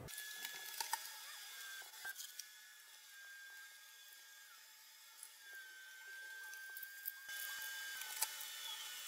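A few faint metal clicks and clinks as the panels of a wire pet playpen are handled and set up, over a faint, steady high-pitched whine.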